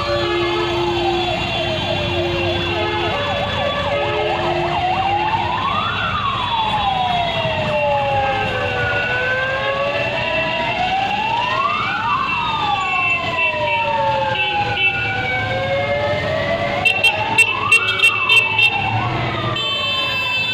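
A siren wailing slowly, its pitch rising and falling about every six seconds, with a second siren overlapping it, over the low hum of passing car engines. Near the end comes a quick run of about seven short, sharp sounds.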